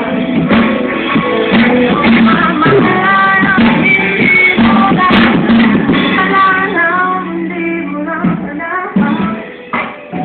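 Music: a song with a high singing voice over an instrumental backing.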